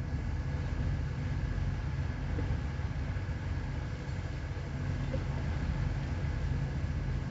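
Ship's engine running steadily on board, a constant low drone.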